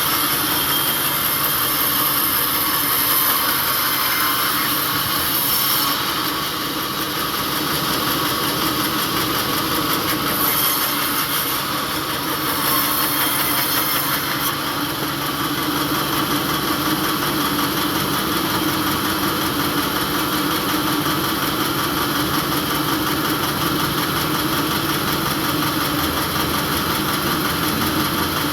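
Sawmill engine running steadily at idle, a constant mechanical hum. A high hiss comes and goes during the first half.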